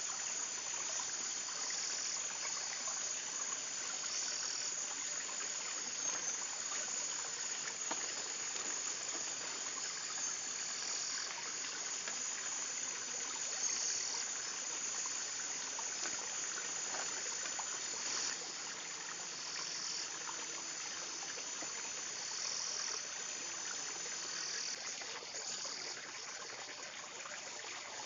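Outdoor ambience of insects chirring in a high, steady pitch that steps up and down in level every second or so, over an even rushing hiss. Faint light ticks and rustles of ban-ban plant strips being woven by hand.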